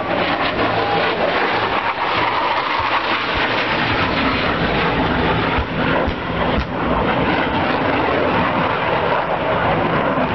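CF-18 Hornet jet engines running loud and steady during a low bombing pass, with a pyrotechnic explosion going off about six seconds in as a few sharp bangs.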